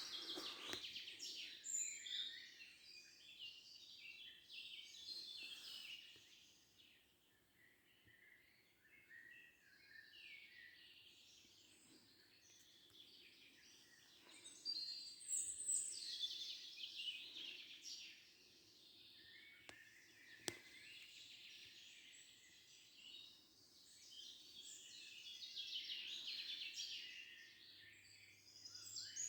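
Songbirds singing in bursts of quick, high chirping notes, with quieter gaps between phrases. A single sharp click about twenty seconds in.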